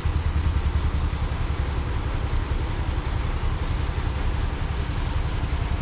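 Large diesel engine running steadily: a low, fast-pulsing rumble with no hammer strikes.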